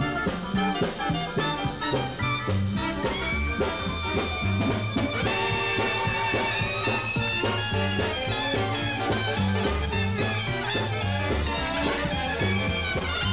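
Dixieland-style swing band playing live: trumpets, trombone, saxophone and clarinet in ensemble over a walking bass line and drums, with one long held high note in the middle.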